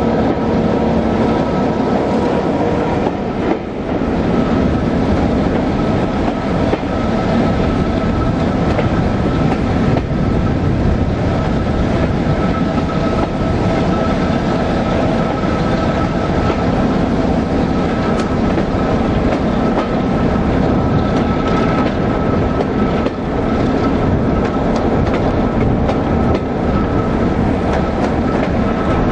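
Railway passenger coach running along the line, a steady rumble and rattle of wheels on track heard from the carriage window, with a thin steady high tone over it.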